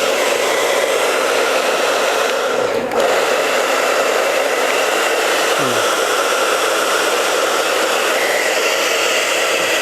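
Handheld hair dryer running on its cold-shot setting: a steady rush of unheated air with a faint motor whine, dipping briefly about three seconds in.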